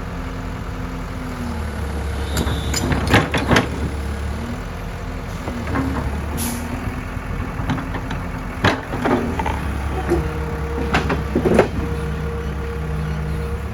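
Heavy vehicle engine running steadily, its pitch shifting slightly now and then, with several sharp knocks over it, a pair about three seconds in and more near the end.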